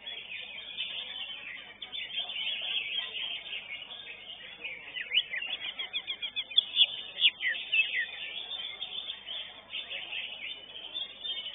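Greater green leafbird (cucak ijo) singing a fast, varied string of chirps and trilled notes, busiest and loudest about five to eight seconds in.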